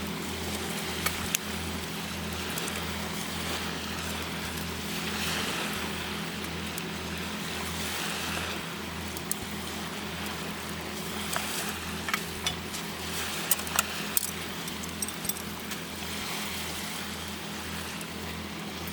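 An engine running steadily with a low, regularly pulsing hum, with scattered light clicks and taps over it.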